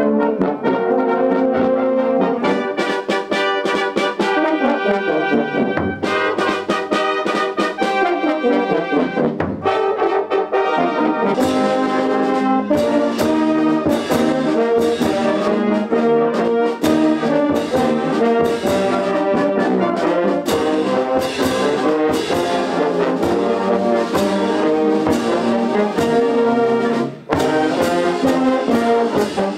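Brass band playing a piece: trombones, euphoniums and tuba carrying the melody and harmony, with percussion keeping a steady beat and hand-held crash cymbals clashing through the second half.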